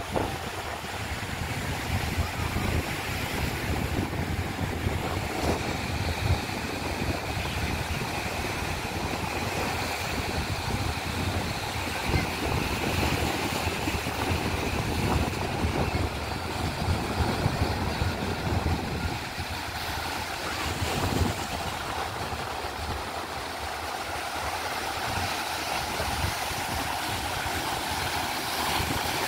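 Sea surf breaking and washing over a boulder seawall, a steady rushing wash, with wind buffeting the microphone.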